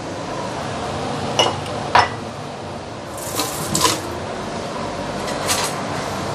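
Kitchenware clinking off to the side: a few sharp clinks of small dishes or utensils, scattered, with a short cluster about three seconds in, over a steady background hum.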